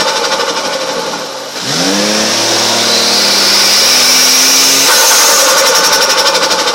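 Turbocharged Toyota 1G-FE 2.0-litre inline-six being revved. It dies down in the first second and a half, revs up quickly, holds for about three seconds, then about five seconds in the throttle closes and turbo flutter follows: a rapid, even fluttering chatter over the engine.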